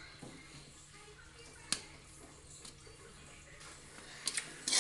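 Spatula stirring fried rice in a metal wok: a sharp clack against the pan about two seconds in and a quick run of three more near the end, over a faint steady hiss.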